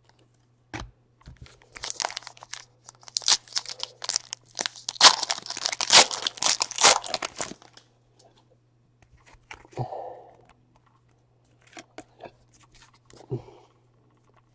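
A trading-card pack wrapper torn open and crinkled for several seconds, followed by a few lighter rustles and clicks as the cards are handled.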